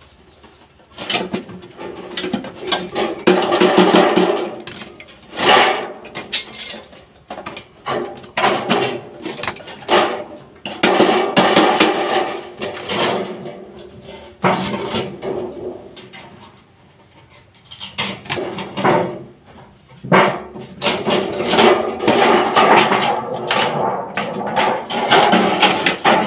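Sheet-metal gutter being hammered and handled: irregular knocks and taps with metallic clattering between them, easing off for a couple of seconds partway through.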